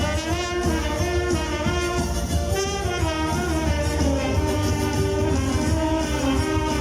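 A live band playing a melody on brass instruments, with a steady low rumble underneath.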